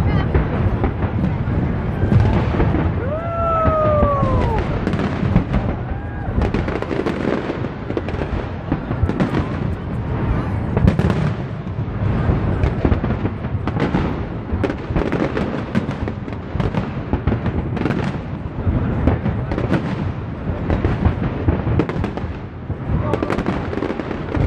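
Fireworks display: a dense, continuous barrage of aerial shell bursts, bangs and crackles overlapping with a low rumble. About three seconds in, a brief rising-then-falling whistle sounds over the bursts.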